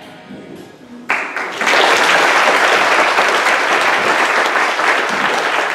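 The last ring of the drum kit fades out, then audience applause starts about a second in, swells quickly and goes on steadily.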